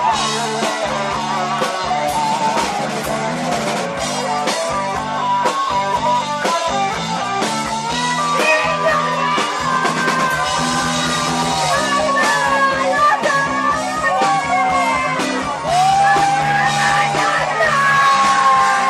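Live rock band performance: a male lead singer over electric guitars and a steady beat. The sung melody comes in strongly about eight seconds in.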